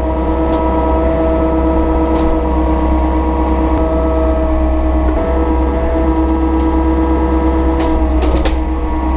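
Takeuchi TB260 mini excavator's diesel engine running under load with a steady hydraulic whine, heard from inside the cab; the whine shifts in pitch as the controls are worked. A few light knocks near the end.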